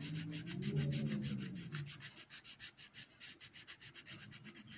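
Coloured pencil scratching back and forth on paper in rapid, even hatching strokes, several a second.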